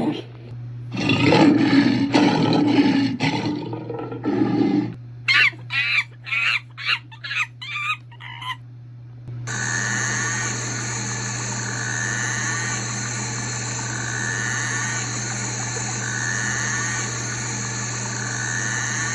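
A string of recorded animal sound effects. First comes a few seconds of a pitched, wavering call. Then about a dozen short, quick chirps. Then a long, steady rushing noise with a warble that recurs about every two seconds.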